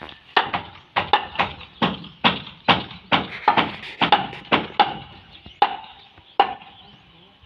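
Hammer blows, a carpenter nailing wooden concrete formwork: sharp strikes about two to three a second in an uneven rhythm, each with a short ring, stopping shortly before the end.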